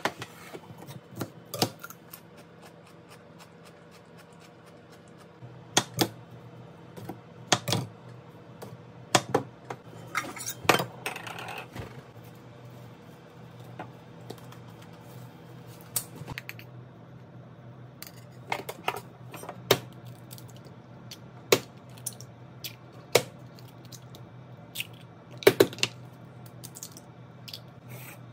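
Kitchen prep handling sounds: scattered sharp clicks and knocks of eggs, utensils and a stainless steel bowl on the counter, with a stretch of plastic wrap crinkling. Three eggs are cracked into the steel bowl in the second half, over a low steady hum.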